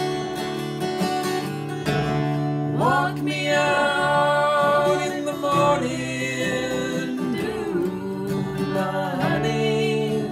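Acoustic guitar playing chords, joined about three seconds in by a man and a woman singing together.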